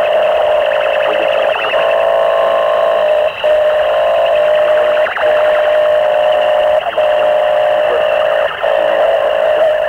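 Harsh noise music from homemade electronics and microphones: a loud, steady, distorted drone built on one mid-pitched tone with hiss above it, cutting out briefly about every second and a half.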